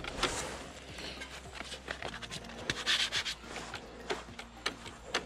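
Scratchy rubbing and small clicks as a gloved hand handles and works the motorcycle's bent rear brake pedal.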